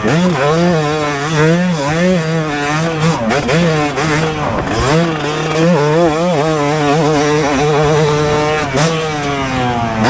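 Two-stroke motocross bike engine being ridden hard, the revs rising and falling again and again with throttle and gear changes, with a brief drop in the revs about four and a half seconds in.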